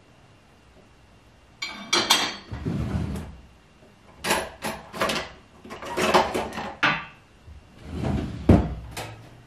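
Kitchen handling sounds: a string of knocks and clatters from pans, utensils and cupboards being moved about, starting about a second and a half in, some with a brief metallic ring, and a heavy low thump near the end.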